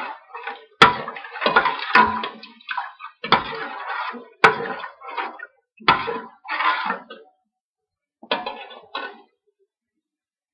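Metal ladle stirring and scraping around a stainless steel pot of thin curry gravy, in irregular strokes with a few sharp clinks against the pot, stopping about nine seconds in.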